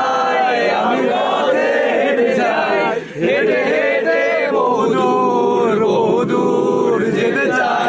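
A crowd of men's voices singing a Bangla song together, loud and close, with a brief pause about three seconds in.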